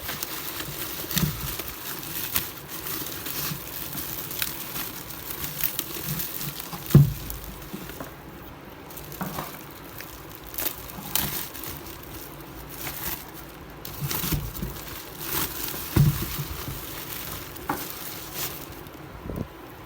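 Packaging crinkling and rustling, with scattered knocks and clicks, as a new mixer grinder is unpacked and handled; the sharpest knocks come about seven seconds in and again near sixteen seconds.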